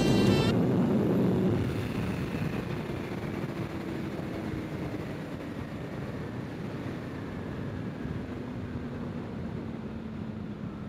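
Honda CBR650R inline-four engine: a high whine that cuts off about half a second in as the throttle closes after a good little rip. The engine note then falls slowly as the bike slows down, under steady wind rush.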